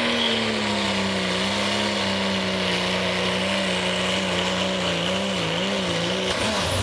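Diesel Dodge Ram pickup's engine held at full throttle under heavy load as it pulls a weight sled. The pitch dips slightly at the start and then holds steady over a steady high whine. It wavers up and down about five seconds in, then drops away near the end.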